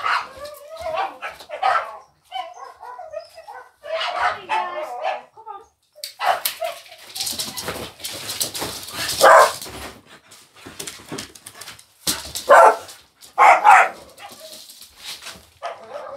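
A dog barking in short, irregular bursts, with a few loud barks in the second half.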